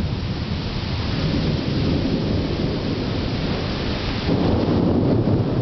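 Thunderstorm: steady rain with a low, continuous rumble of thunder that swells about four and a half seconds in.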